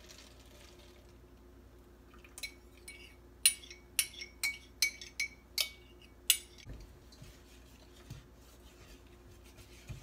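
Metal utensil clinking against a stainless steel saucepan while batter ingredients are mixed: a run of about nine sharp, ringing clinks between about two and a half and six and a half seconds in, over a faint steady hum.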